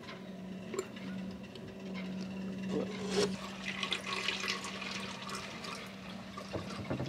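Hydraulic oil pouring from a plastic jerry can into a cut-off plastic bottle used as a funnel, starting about halfway through. A steady low hum runs underneath.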